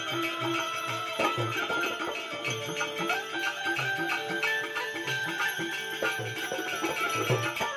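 Devotional bhajan music: sustained melodic instrument tones over a repeating low drum beat, with continuous jingling percussion.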